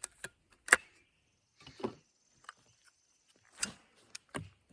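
A string of short, sharp clicks and knocks from a 12 gauge shotgun being handled between shots, the loudest about three-quarters of a second in. A faint, thin high tone runs through the middle.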